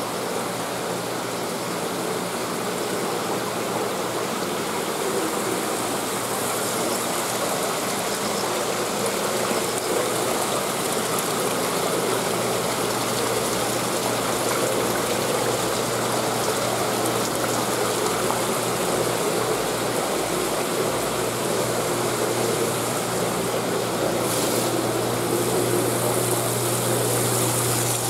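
Water running and splashing steadily into a live-bait fish tank, with a steady low hum underneath.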